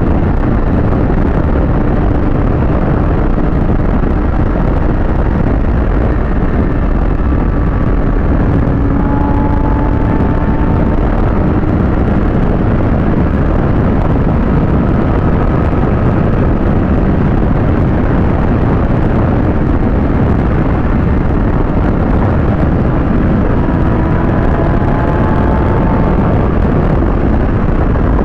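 Heavy, steady wind noise buffeting the microphone of a motorcycle at speed, with the Kawasaki ZX-6R's inline-four engine running underneath as a faint drone whose pitch drifts slightly.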